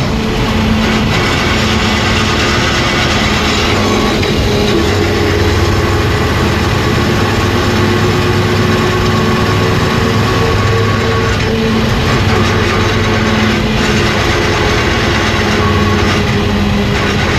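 Chevrolet pickup running with a steady grinding whine from its SM465 four-speed manual transmission, the pitch shifting a few times. The grind is a fault bad enough that the owner expects a full transmission rebuild.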